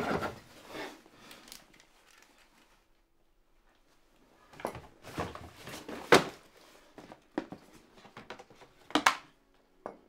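Knocks and clinks of bottles and other items being shifted about in a cupboard under a kitchen sink. They come in short clusters, with a lull of a couple of seconds early on, and the loudest knocks come about six and nine seconds in.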